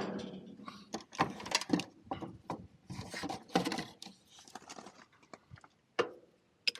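Irregular clicks, taps and rubbing from hands handling small parts and wiring, with a few sharper clicks near the end.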